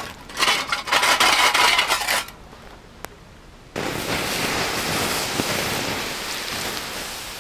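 Embers and ash are shaken out of a small metal camp stove, rattling and clattering for about two seconds. From about four seconds in, water is poured onto the hot embers with a sudden steady hiss, dousing the fire.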